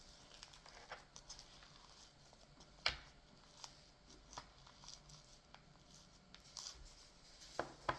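Hard slime being pressed and pulled apart by fingers: faint sticky crackles and small clicks, with one sharper click about three seconds in.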